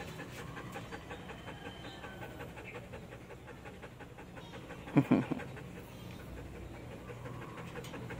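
Belgian Malinois panting steadily. About five seconds in comes a short, loud sound of two or three quick strokes.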